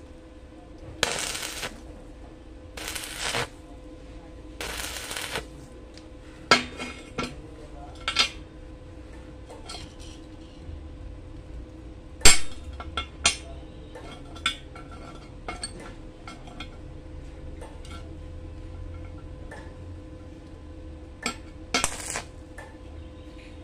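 Stick (arc) welder tacking a nut onto a steel plate: the arc crackles in three short bursts in the first five seconds and twice more near the end. In between come light metal clinks and taps as tools and parts are handled, the sharpest about twelve seconds in, over a faint steady hum.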